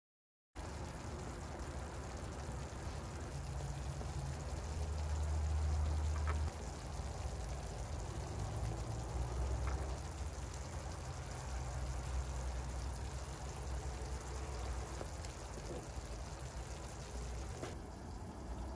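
Tomato and egg sauce simmering in a frying pan on a gas burner: a steady bubbling hiss with a low hum underneath, and a couple of light clicks as avocado and olives go into the pan.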